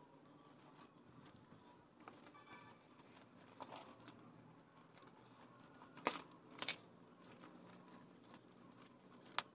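Faint rustling and crinkling of cardboard and paper packaging being pulled open by hand. There are sharp snaps twice about six seconds in and once more near the end.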